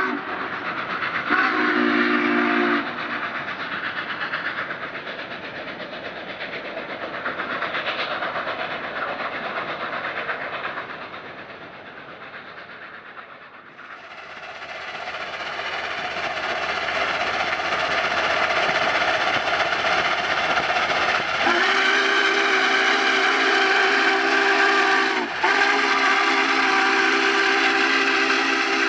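Union Pacific 844, a 4-8-4 steam locomotive, running past at speed with its steam whistle blowing. There is a short blast about a second in, then two long blasts near the end with only a brief break between them.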